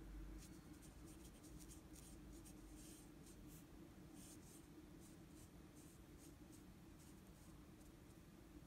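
Faint, scratchy strokes of a brush pen's tip drawn across chiyogami paper in a run of short strokes that thin out near the end, over a steady low hum.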